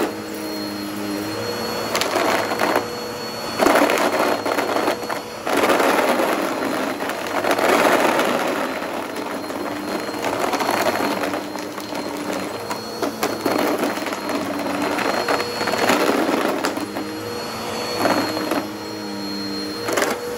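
Upright vacuum cleaner running on carpet with a steady motor hum. Several times it breaks into bursts of rattling and crackling as hard little pencil-cap erasers are sucked up through the nozzle.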